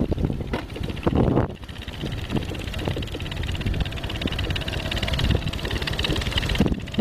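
Motorcycle engine running, heard from on the bike as it rides a rough dirt track. It is uneven with knocks for the first second and a half, then settles into a steadier run with a fast, even buzz.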